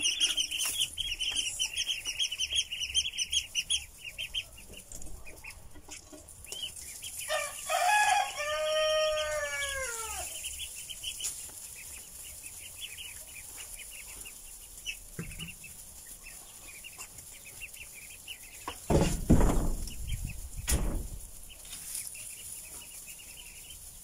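A flock of ducklings peeping rapidly in high voices, busiest in the first few seconds. A rooster crows once, a long arching call about a third of the way in. Two loud rustling bumps come near the end.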